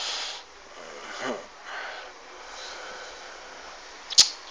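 A man's sharp sniff through the nose, then a brief falling vocal sound from him about a second later. A single sharp click comes near the end.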